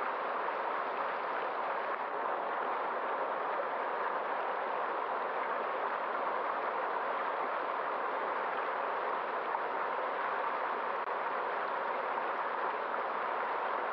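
Running water of a stream: a steady, even rush with no distinct splashes or changes.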